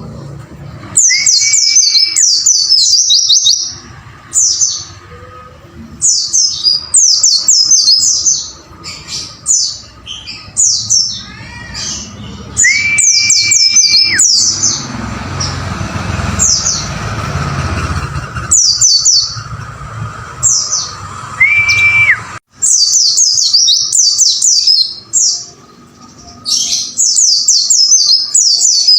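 White-eye (pleci) song: rapid, high chirping phrases of quick down-slurred notes, repeated in bursts with short pauses. A few lower, longer whistles that rise and then hold steady come in among the phrases.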